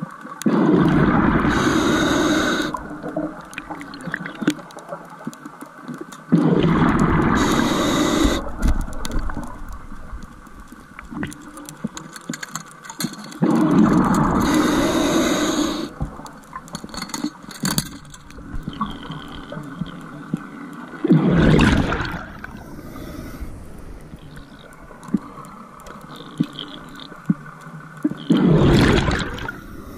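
Scuba diver's breathing underwater: exhaled bubbles burbling from the regulator in bursts of about two seconds, repeating every six or seven seconds, the last two shorter, with faint crackling between breaths.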